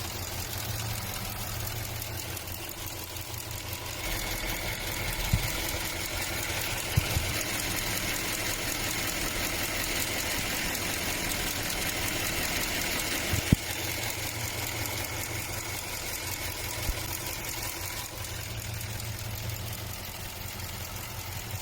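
Car engine idling, with a thin high whine that comes in about four seconds in and fades near the end, presented as a sign of a bad water pump. A few short sharp knocks.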